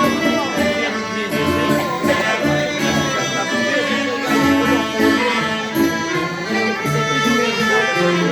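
Live dance-band music playing continuously, with sustained melody notes over a regular bass line.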